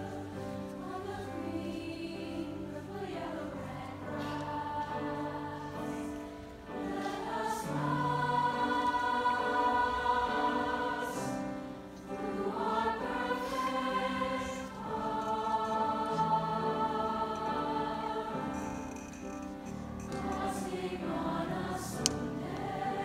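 Large mixed high-school choir singing in long held phrases that swell and briefly break between them. A single sharp click near the end.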